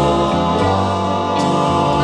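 Music with sustained, choir-like chords over a bass line that steps from note to note.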